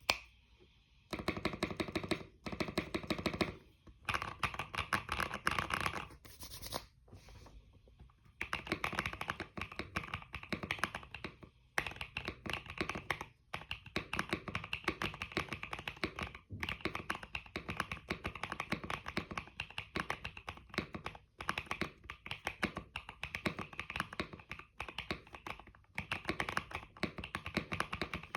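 Typing on a mechanical keyboard fitted with new keycaps: fast runs of key clicks broken by a few short pauses.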